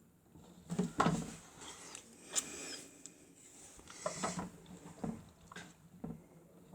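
Miele W1 toy washing machine running its wash cycle: a faint steady hum from its small motor under irregular clicks and rattles from the turning drum, loudest about a second in.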